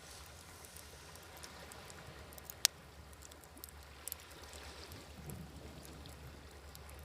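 Wood fire crackling with scattered small pops and one sharp, loud pop a little over two and a half seconds in, over a low, steady wash of waves.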